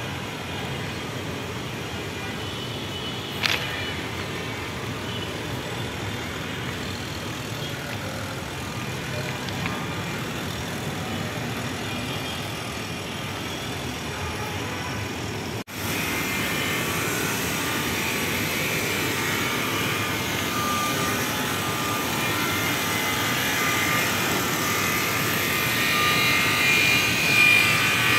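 Steady outdoor urban background noise, a hiss like distant traffic, with a single click about three seconds in. After a sudden break about halfway through, the noise is louder and brighter and swells toward the end.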